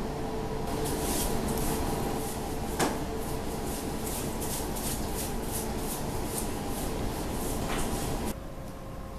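Steady machinery hum with a droning tone, from the cruise ship under way, overlaid by a run of hissing pulses about two a second and one sharp click about three seconds in. The sound drops abruptly near the end.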